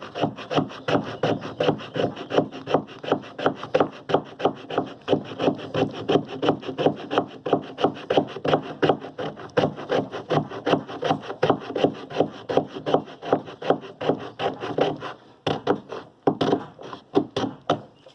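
Spine of a Boker Magnum Chainsaw knife scraped rapidly along a piece of dry wood, about four rasping strokes a second, shaving off fine wood dust for tinder. The strokes stop briefly near the end, then a few more follow.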